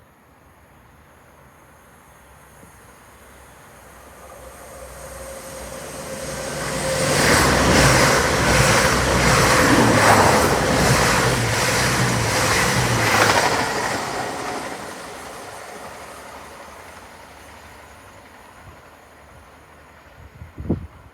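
A train passing at speed: it builds up, runs loud for about seven seconds with a rhythmic clatter of wheels over the rail joints, then fades away.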